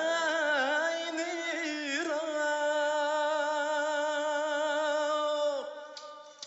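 A man singing a Uyghur song to his own acoustic guitar. From about two seconds in he holds one long note with vibrato, which stops shortly before the end; after that only a fading tail remains.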